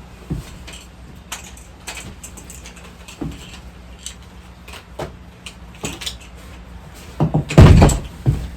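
Hand tools and metal parts clinking and knocking in scattered light taps, with a louder clatter of several knocks near the end.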